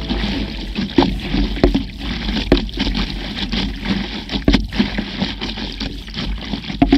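Choppy water lapping and slapping against a stand-up paddleboard, close to the water, with a handful of sharper irregular splashes over a steady low rumble.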